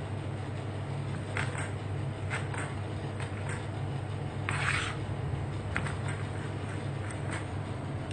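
A steady low hum with scattered light clicks and knocks of handling in a kitchen, and a short scraping noise about four and a half seconds in.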